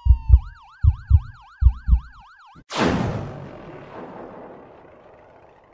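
Produced logo-sting sound effect: a police-siren yelp rising and falling about five times a second over three pairs of heavy bass hits, then one big crash-like hit about two and a half seconds in that fades out slowly.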